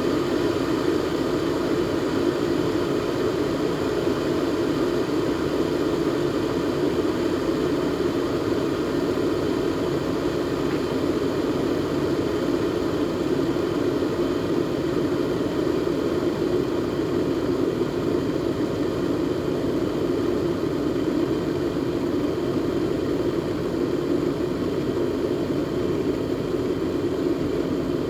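Kettle with water at a steady boil: a continuous, even low rumble of bubbling water that neither rises nor falls and has no whistle.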